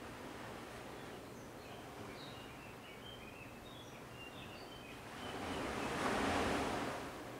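Mediterranean surf: a steady wash of sea noise, with one wave swelling up about five seconds in and falling away near the end. Birds chirp faintly in the first half.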